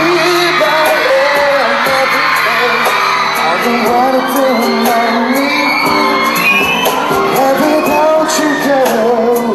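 Live pop song: a male voice singing into a handheld microphone over an amplified backing track with a steady beat.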